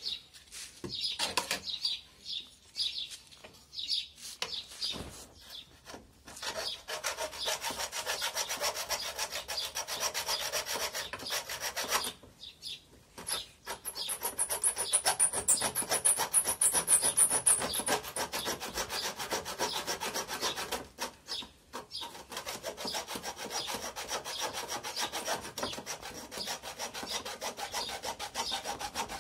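Hacksaw blade slipped between pallet boards, sawing back and forth through the nails with a steady rasping scrape, pausing briefly twice. A few metal clinks and scrapes come first, and a high whine joins for a few seconds midway.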